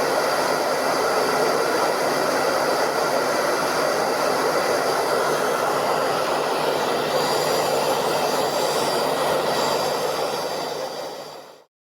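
Hair dryer running steadily: an even rush of blown air with a faint motor whine. It fades out near the end and stops.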